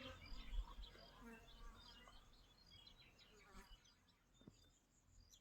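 Faint birdsong of short, scattered chirps over quiet outdoor background, with a brief low rumble about half a second in.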